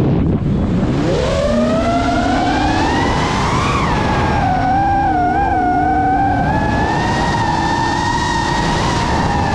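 Brushless motors and propellers of a GEPRC Mark 5 FPV quadcopter whining. The pitch drops steeply at the start as the throttle is cut for a dive, climbs back over the next couple of seconds, then holds and wavers with small throttle changes.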